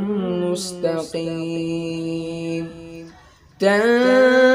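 Unaccompanied male Quran recitation in melodic tajweed style: the reciter's voice ornaments a phrase, then holds one long steady note at the end of a verse. It fades away about three seconds in, and after a brief pause he starts the next verse on a higher held note.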